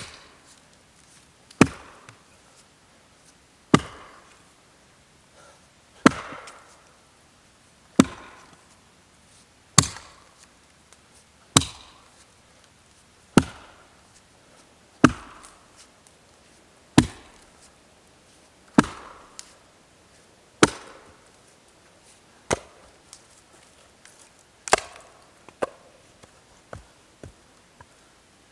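Small axe chopping through dead branches: sharp woody strikes at a steady pace, about one every two seconds. Near the end these give way to lighter, quicker knocks.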